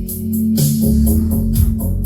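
Music with guitar, bass and a steady drum beat.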